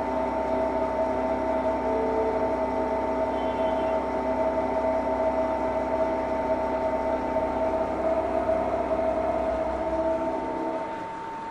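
Milling machine running steadily with a whine made of several constant tones over a hiss. The sound drops away about ten and a half seconds in.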